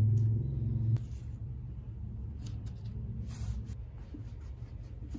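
Fingers rubbing masking tape down onto a canvas tote bag, a few soft brushing strokes over a low steady hum. The hum is louder for the first second, then drops.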